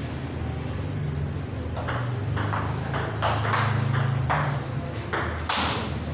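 Table tennis rally: the ball clicking sharply off the paddles and table, about two hits a second, starting about two seconds in, over a steady low hum.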